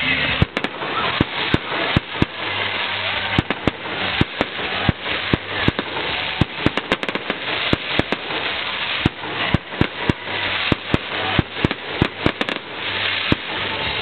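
Aerial fireworks shells bursting: dozens of sharp bangs in a fast, irregular string, sometimes several close together.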